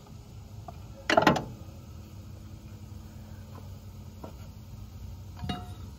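A short, loud metallic clank about a second in and a lighter knock near the end, from tools or parts being handled at the mower's belt and pulley, over a low steady hum.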